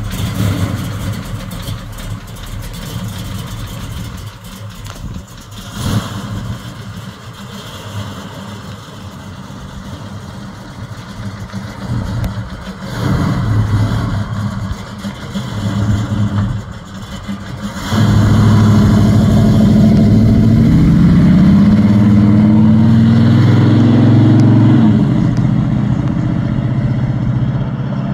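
1970 Chevrolet Chevelle SS V8 engine idling with a few short blips of the throttle. About 18 seconds in it pulls away hard and gets much louder, its pitch climbing for several seconds before easing off as the car drives away.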